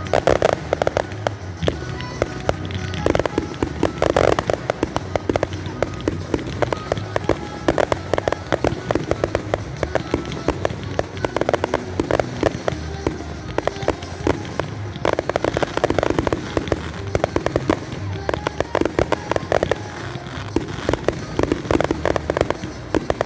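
Fireworks display: dense, rapid crackling and popping of bursting shells, in clusters of sharp reports throughout.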